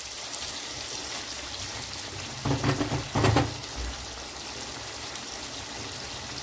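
Marinated chicken sizzling steadily as it fries in oil and butter in a pan. About halfway through come two short, louder knocks.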